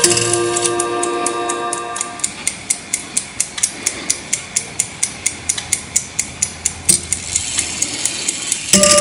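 Five-tone clock chime on a bare movement: the last notes ring and fade, then the movement ticks quickly and evenly, about four ticks a second, and near the end the chime strikes again with a new set of ringing notes.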